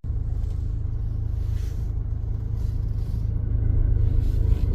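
Low, steady rumble of a Mahindra Scorpio-N on the move, heard from inside the cabin, growing a little louder near the end.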